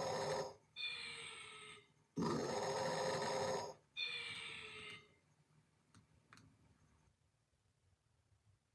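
Snoring: two loud snores, each followed by a softer, fading breath with a falling whistle, then two faint clicks and quiet.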